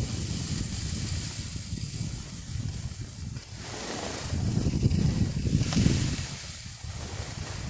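Wind buffeting the microphone of a camera carried while skiing downhill, a gusty low rumble, with hissing from the skis on the snow that swells twice, about four and six seconds in.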